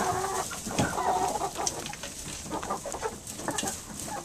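A flock of barred rock and white leghorn chickens clucking in short, overlapping calls, with scattered sharp clicks among them.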